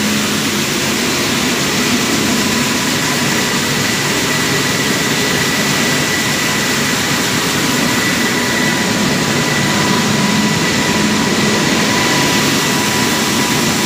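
Rice milling plant machinery running: a loud, steady mechanical noise with a faint high whine and a low hum.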